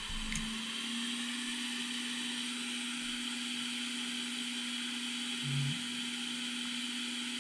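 Steady whir and airy hiss of a small electric blower at a soldering bench, with a steady hum under it.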